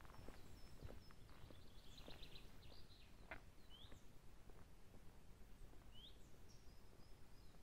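Faint outdoor ambience: a few footsteps on a pine-needle forest path in the first second or so, then small birds chirping, with a quick trill about two seconds in and short rising calls every couple of seconds.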